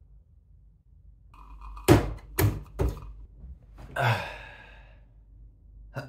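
A man's voice, not speaking: three short coughs about two seconds in, then a long, breathy, open-mouthed sigh about four seconds in.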